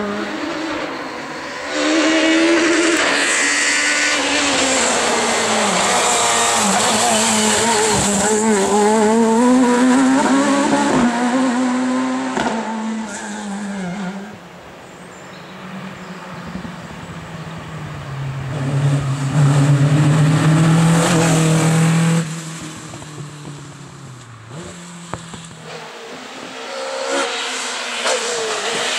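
Rally car engines at full throttle, revving high and dropping back through gear changes as cars pass, one after another.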